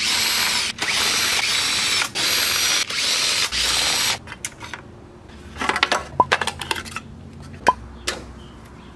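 Cordless power ratchet spinning off the valve-cover fastener nuts in four runs over about four seconds, with brief breaks between them. Light clicks and rattles of the loosened nuts and parts being handled follow.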